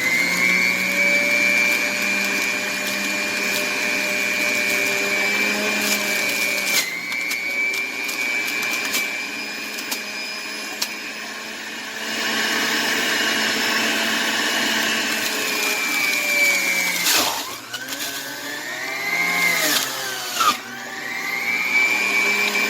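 Electric juicer motor running with a steady high whine while it grinds pineapple, carrot, ginger and garlic. About 17 seconds in, it cuts out and spins back up, and it does so again about 20 seconds in.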